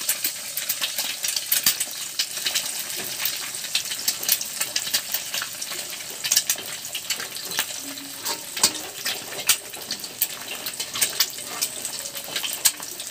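Egg frying in hot oil in a wok: a steady sizzle with many small crackles and pops.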